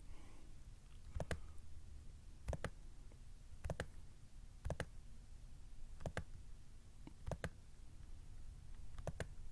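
Computer mouse clicking: about seven sharp clicks, some in quick pairs, roughly one every second or so, over a faint low hum.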